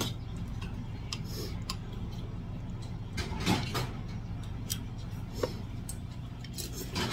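Metal spoon and chopsticks clinking and scraping against a stainless steel bowl as rice is mixed. There are scattered clicks and a longer scrape about three and a half seconds in, over a steady low hum.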